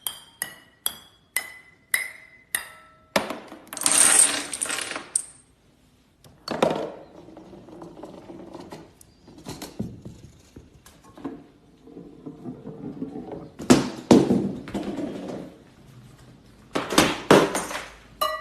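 Hard small objects clinking and clattering: first a run of sharp ringing clinks, about two a second, then several bursts of rattling clatter like many coin-sized pieces tumbling and spilling.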